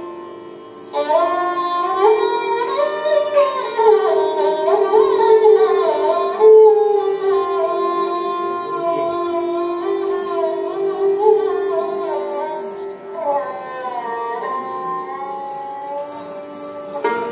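Live Hindustani classical accompaniment for kathak: a melodic instrument plays an ornamented, gliding line over a steady drone. The dancer's ankle bells (ghungroo) jingle briefly around the middle and again near the end.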